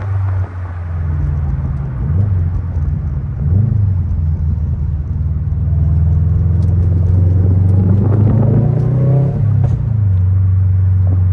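2021 Subaru WRX STI's turbocharged 2.5-litre flat-four running through a Tomei aftermarket exhaust: a steady low drone with brief rises in pitch about two and three and a half seconds in, and a louder, busier stretch around eight to nine seconds that drops back shortly after.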